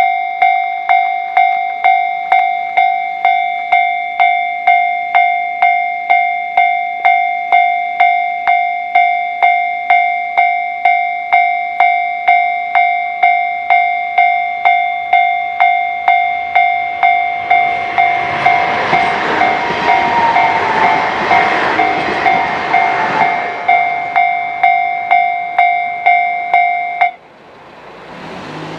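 A Japanese railway level-crossing alarm rings loudly, an electronic bell striking about one and a half times a second. A diesel local train passes through the crossing over several seconds partway through. The alarm stops shortly before the end.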